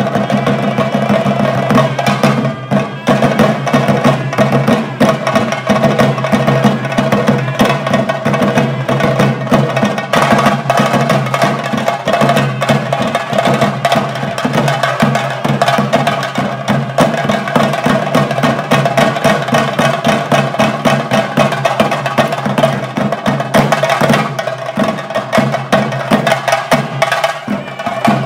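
Fast, continuous drumming with sharp, closely packed strokes, typical of the chenda drums that accompany a Theyyam, over steady sustained tones.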